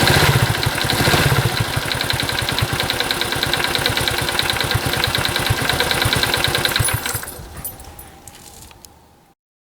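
Honda Super Cub 50's single-cylinder four-stroke engine idling with an even rapid beat, louder briefly in the first second. It is switched off about seven seconds in and runs down to silence.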